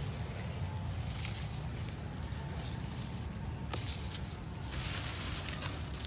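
Handling rumble from a handheld phone microphone, with scattered rustles and soft clicks as it moves among cassava plants; the rustling gets louder for a couple of seconds past the middle.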